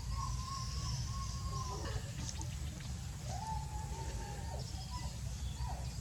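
High, thin animal calls. A long drawn-out call falls in pitch at its end, then shorter calls rise and fall, over a low rumble.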